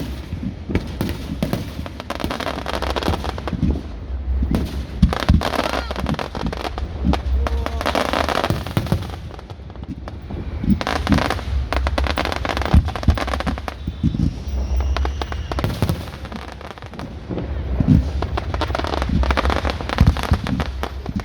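Fireworks display: many bangs and crackles in quick succession over a low rumble, easing briefly twice before picking up again.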